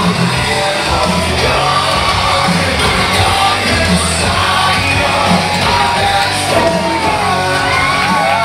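Loud music with singing and yelling, steady throughout.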